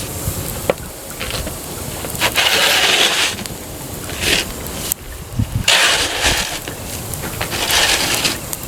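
Wood campfire crackling with scattered sharp pops, under several rushing surges of wind noise that rise and fade over a second or so each.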